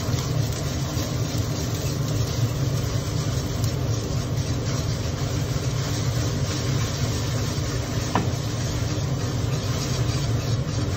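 Gas burner running steadily under a wok, a low roar, with beaten egg sizzling as it is poured in and stirred. One light tap of the metal spatula on the wok about eight seconds in.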